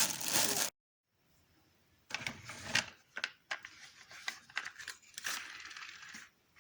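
Toy packaging being crinkled and torn open by hand, in a series of noisy rustling bursts with scattered clicks, broken by a second of dead silence near the start.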